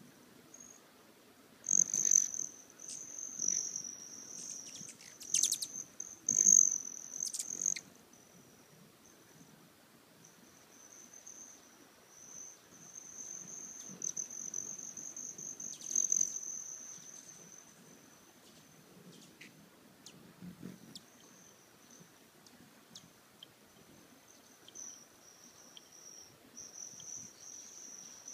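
Broad-tailed hummingbird wing trill from birds coming and going at a feeder: a high, steady trill that swells and fades, loudest in the first third and again around the middle. A few short, sharp notes are mixed in.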